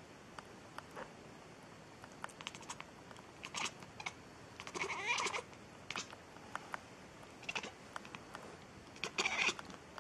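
Cat meowing in short calls, about five times, the longest about halfway through.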